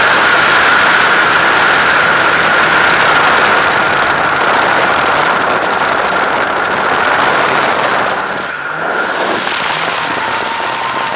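Nissan 240SX drift car sliding under power, heard on board: engine running hard with tyre noise and a steady high tone, crackling on the microphone. The sound eases off briefly about eight and a half seconds in, then picks up again.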